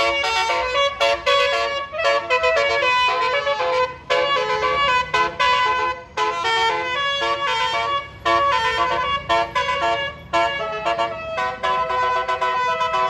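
Bus telolet horn (a Basuri multi-trumpet air horn) playing a fast melody of stepping notes, in phrases broken by short pauses about every two seconds.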